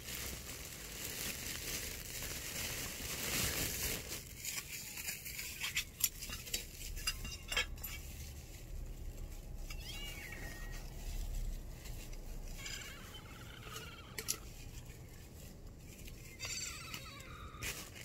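Street cats moving about on a board on the ground: light patter and rustling from paws, and a few short high calls in the second half.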